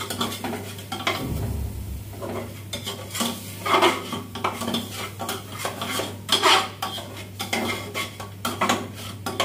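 Metal spatula scraping and clanking against an aluminium pot in irregular strokes, stirring masala as it roasts (bhuna) on the gas flame.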